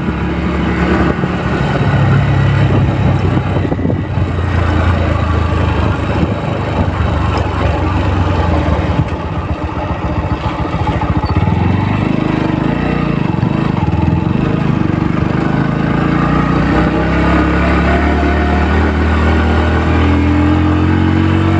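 Motorcycle engine running while the bike is ridden slowly along a rough lane, easing off around the middle and rising in pitch again near the end as it picks up speed.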